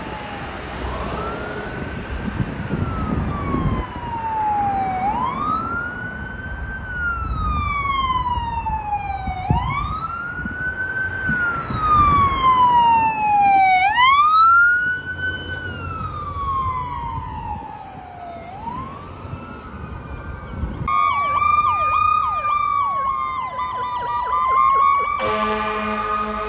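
Ambulance siren on wail, rising and falling about every four and a half seconds with traffic and engine rumble underneath, loudest as it passes about halfway through. From about twenty seconds in a different, wavering siren takes over, and near the end a fire engine's horn joins in with steady, stacked tones.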